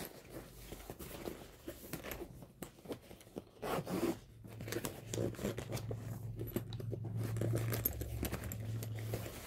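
DJI Fly More shoulder bag being handled: its nylon fabric rustles and small clicks come from the strap buckle and zipper as the zipper of the front pocket is worked open. A low steady hum comes in about halfway through.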